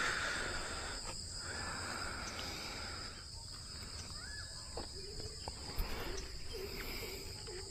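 Steady high-pitched chorus of insects, with faint rustling and a few small clicks, and a short chirp about four seconds in.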